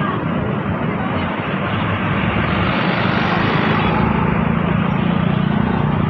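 Tour bus driving past close by with engine and tyre noise, then the low engine hum of a second bus approaching and growing stronger about halfway in. No horn sounds.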